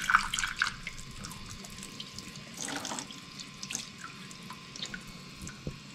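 Kitchen tap running into a sink, a steady hiss with scattered splashes as a whole fish is rubbed clean under the stream by hand.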